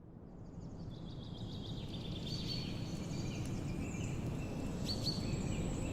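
Birds chirping and calling over a steady low outdoor rumble, the whole rising in level over the first couple of seconds.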